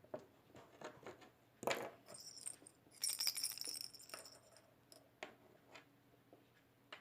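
Scattered handling clicks and knocks, with a brief run of metallic clinking about three seconds in.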